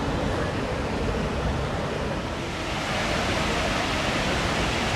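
Waterfall rushing: a steady wash of falling water that swells a little about three seconds in.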